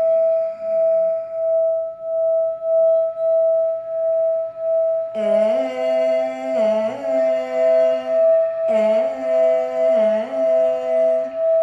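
A singing bowl holds one steady tone that swells and fades about one and a half times a second. About five seconds in, a voice joins, humming or toning long held notes over the bowl, with a breath between each.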